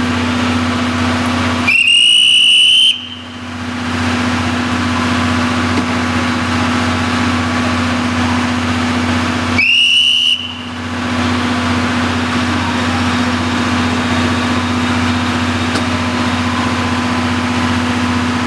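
Two high-pitched blasts of the DD51 diesel locomotive's whistle, the first about a second long, the second shorter about eight seconds later, each rising slightly in pitch as it sounds, over a steady low hum.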